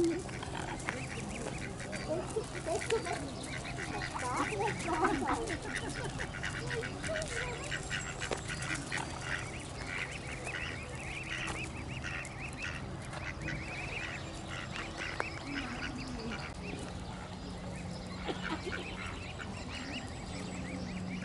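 Mute swan cygnets peeping: a steady stream of short, high calls.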